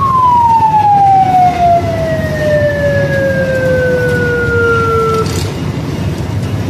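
Fire tanker's siren winding down: its tone falls steadily in pitch and dies out about five seconds in. Under it runs the steady low rumble of the truck's engine.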